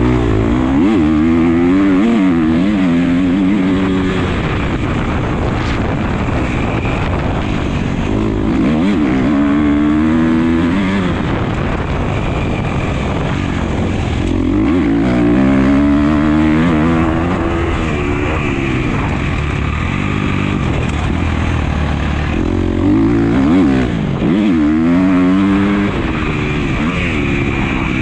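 Motocross bike engine heard close up from the rider's own camera, revving up hard and dropping back again in four long surges as the bike accelerates down the straights and backs off for the turns.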